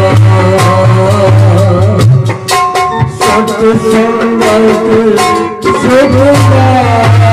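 Instrumental passage of a Hindi devotional bhajan: held melody notes over drum beats. The deep low note drops out for a few seconds in the middle.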